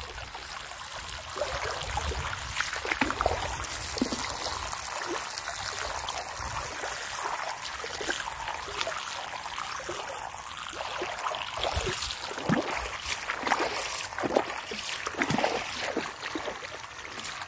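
Water churned and spattered by the propeller of a small electric motor boat: a steady splashing noise full of small spatters, with no clear motor whine.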